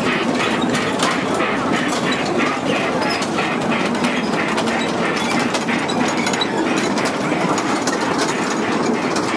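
Children's miniature train ride running around its small circular track, its wheels clicking over the rail joints about two to three times a second, over a murmur of crowd chatter.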